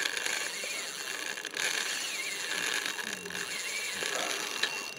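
Fishing reel's ratchet mechanism clicking as a hooked catfish is played on the line.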